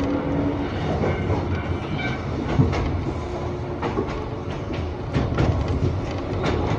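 Former Tokyu electric train car of the Iga Railway running between stations, heard from inside the car: a steady rumble with wheels clicking over rail joints throughout.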